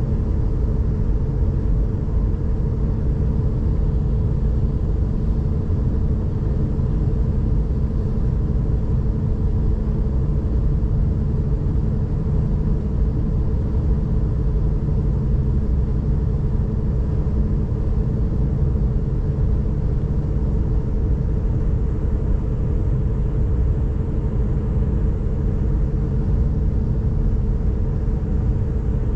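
S-Bahn passenger train running at speed, heard from inside the carriage: a steady rumble of the train on the track with a constant hum over it.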